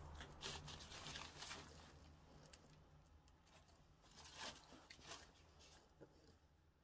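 Near silence with faint scattered crackles and rustles, a little louder in the first two seconds.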